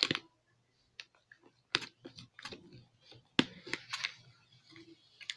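Slime mixture being stirred in a container with a makeshift mixer: irregular clicks and taps of the stirring tool against the container.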